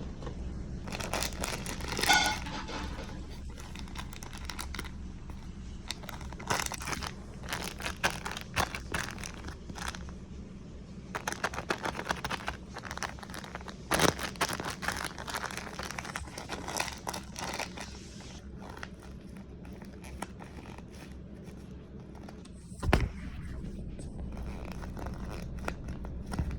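Packaging crinkling and rustling in irregular bursts as it is handled, over a low steady hum. A single sharp knock comes about 23 seconds in.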